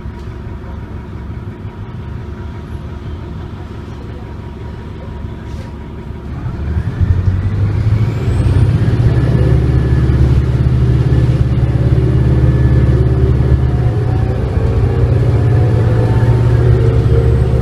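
Detroit Diesel Series 50 engine of a 1999 New Flyer D40LF transit bus heard from inside the cabin, idling at first, then pulling away under power about six seconds in. The engine sound swells, and a whine glides up and then holds steady as the bus accelerates through its Allison automatic transmission.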